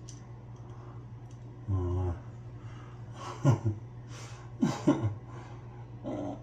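A man groaning and grunting in pain while pulling his own wisdom tooth with pliers: a held moan about two seconds in, then several short grunts that fall in pitch, over a steady low hum.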